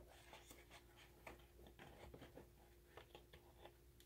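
Near silence: faint, scattered little clicks and rustles of paper pages being handled as waxed thread is stitched through a journal signature, over a faint steady hum.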